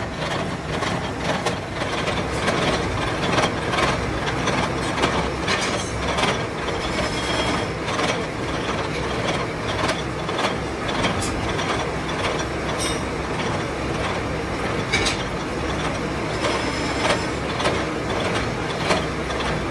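Gear hobbing machine cutting teeth into a stack of steel motorcycle sprocket blanks: a steady mechanical running noise with frequent sharp clicks as the cutter bites.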